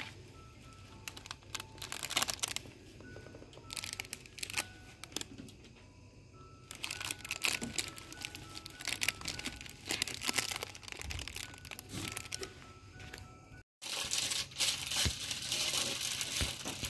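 Crinkling of plastic product packaging as packs are handled, in short spells and densest near the end. Under it runs a faint, simple background melody.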